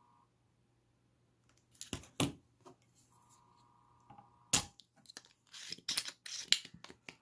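Spring-loaded solder sucker (desoldering pump) at work on a chip's solder joints: a few plastic clicks, then one sharp snap of the plunger firing about four and a half seconds in. A quick run of clicks and rattles follows as the pump is handled.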